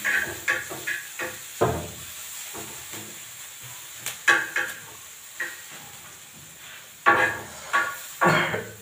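A metal spoon scraping and tapping in a frying pan on a gas stove. A steady hiss runs under it, and a few short, sharp clinks stand out, the most of them near the end.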